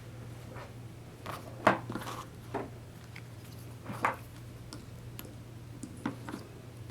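A few separate light metal clinks and knocks as small hand tools are handled, over a faint steady low hum.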